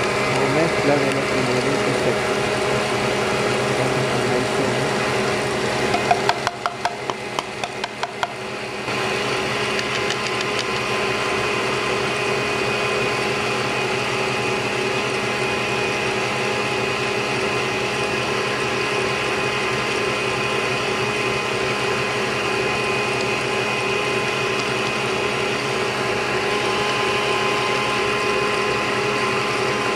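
Electric mixer motor running steadily, beating the eggs, sugar and liquids for the sponge batter. About six seconds in it drops back for a couple of seconds under a quick run of light taps, about four a second, then carries on.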